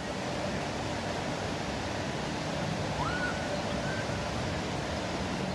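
Steady rushing of flowing river water, an even noise with no break.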